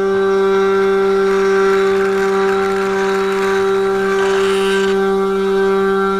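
A 500 W spindle on a 3018 desktop CNC router running at a steady speed, giving a constant whine, while its end mill cuts into a wood block. A rougher cutting noise rises over the whine and swells to its strongest about four to five seconds in.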